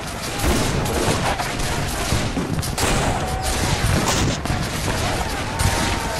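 Dense, continuous gunfire of a staged battle scene, many shots in rapid succession, with a few gliding whistle-like tones in the second half.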